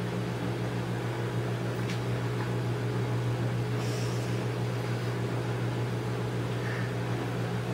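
Steady low electrical hum with no other clear sound; a faint brief rustle about four seconds in.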